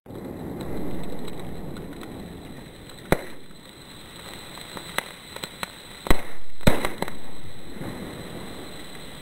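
Sodium metal reacting violently in shallow water: a continuous rushing, spattering noise broken by sharp bangs, one about three seconds in and a louder pair around six to seven seconds in, with smaller pops between.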